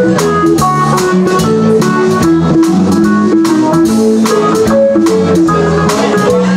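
Live band playing an instrumental passage: electronic keyboard and electric bass guitar over a steady drum beat.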